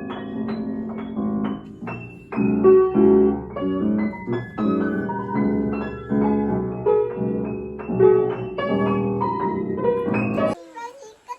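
Background piano music, a run of separate notes, cutting off near the end.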